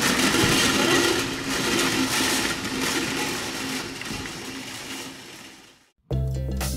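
Shopping cart rolling across parking-lot pavement, a steady noisy rumble that fades out near the end; music starts abruptly just after.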